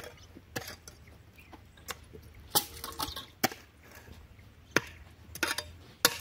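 Farm hand tools striking stony soil: sharp, irregular strikes about once a second.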